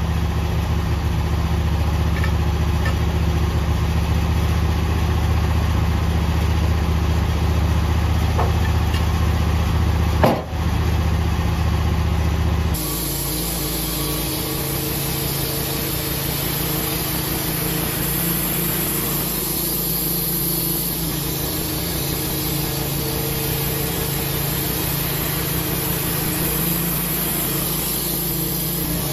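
Wood-Mizer LT15 band sawmill running steadily while a cedar log is milled into slabs, with one short knock about ten seconds in. About thirteen seconds in the sound changes abruptly: the low engine hum drops away and a steadier, hissier machine sound carries on.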